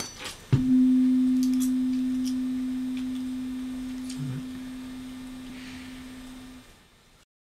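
Tuning fork struck with a mallet and pressed against a wall, giving one steady pure tone that starts suddenly after a few small clicks and slowly fades over about six seconds. There is a soft low knock about four seconds in.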